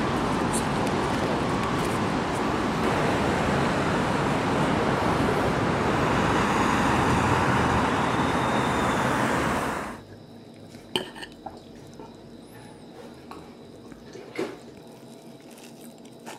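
Street ambience beside a busy road: a steady wash of traffic noise that cuts off suddenly about ten seconds in. After that, a quiet room where a knife and fork clink a few times against a ceramic plate while cutting bread.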